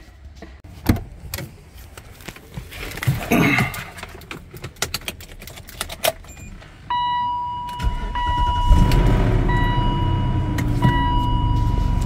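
Keys jangling and clicking at the BMW X5 E53's ignition, then a warning tone beeping in long repeated notes and the engine cranking and starting about eight seconds in, settling into idle with its revs slowly falling.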